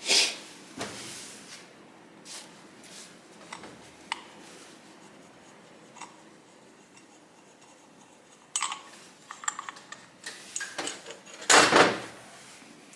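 Hand tools and small metal engine parts clinking and clicking as an engine is being taken apart, with a louder clatter at the very start and a busier run of clatter between about eight and twelve seconds in.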